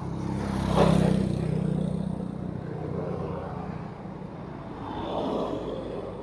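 Motor vehicles passing on the road: one passes close, loudest about a second in and fading over the next few seconds, and another comes up around five seconds in.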